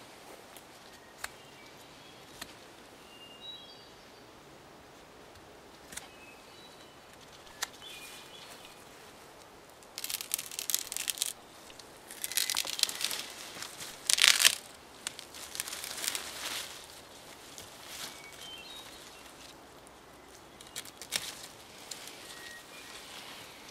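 A small knife cutting and shaving at thin wooden sticks, in several scraping bursts through the middle, with a few sharp snaps and clicks. Birds chirp briefly now and then.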